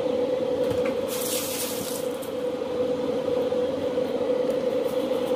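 A steady machine hum with one clear tone, with a short hiss about a second in.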